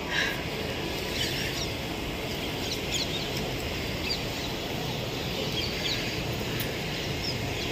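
Small birds chirping with short, scattered calls, some falling in pitch, over a steady hiss of outdoor background noise.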